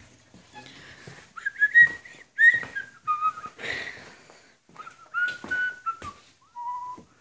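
A person whistling a short tune, a string of separate notes with small slides in pitch, the last one lower, mixed with a few knocks and handling noises.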